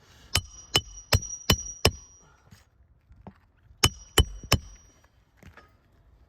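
Hammer striking a steel roof snake to drive roofing nails in under asphalt shingles. Five quick strikes, a pause, then three more, each with a metallic ring.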